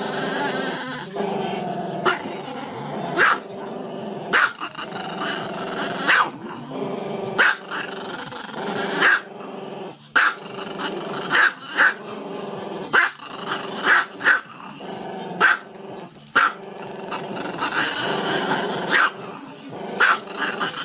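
A small dog howling with its muzzle raised: a long, wavering cry broken by short sharp barks about once a second.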